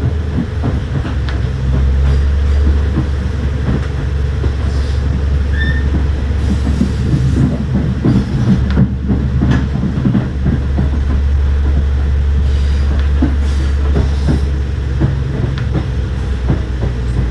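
Limited Express Hida diesel train pulling into the platform: a steady low engine rumble, with wheels clicking over rail joints and a few brief wheel squeals.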